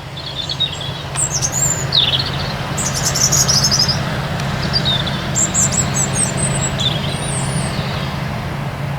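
Steady drone of a forage harvester and tractor working the maize, with small birds chirping in short bursts over it.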